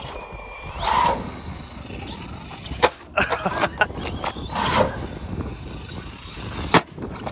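Electric RC monster trucks driving on tarmac: motor whine and tyre noise rising and falling as they accelerate, with two sharp knocks of the trucks landing or hitting, about three seconds in and near the end.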